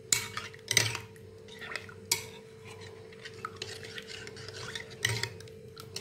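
Metal spoon stirring bitter gourd juice in a bowl, scraping and clinking against the bowl several times. A faint steady hum runs underneath.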